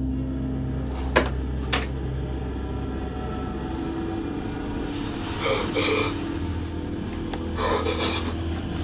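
A wooden chest being rummaged through over a low, steady drone: two sharp knocks about half a second apart just after the start, then rustling and short breathy sounds later on.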